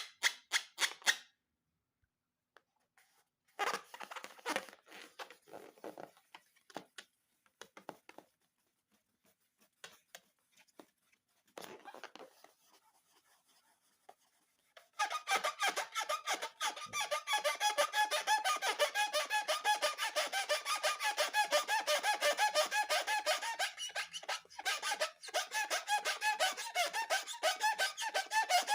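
Rubber balloon squeaking in rapid stuttering runs as it is rubbed and handled: short scattered bursts at first, then a steady continuous squeak from about halfway through.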